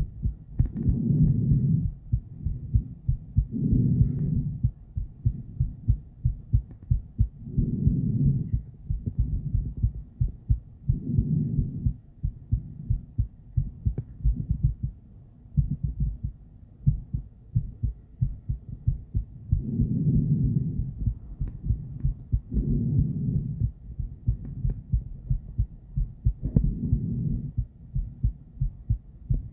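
A woman's heartbeat picked up by a handheld ultrasonic Doppler heartbeat monitor: a steady run of short, low thumps. Longer low whooshing swells, likely her breaths, come every few seconds and stop for about seven seconds in the middle, as if she is holding her breath.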